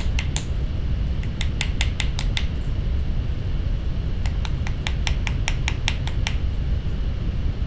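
Light, rapid taps of a small riveting hammer's cross peen on a copper tube rivet resting on a steel bench block, flaring and texturing the rivet head. About five taps a second in three short runs with pauses between, stopping about six seconds in, over a steady low rumble.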